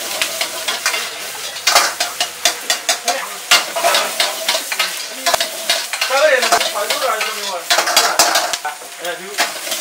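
Metal wok spatula scraping and clanking against a wok in quick, irregular strokes while the food sizzles in hot oil during stir-frying.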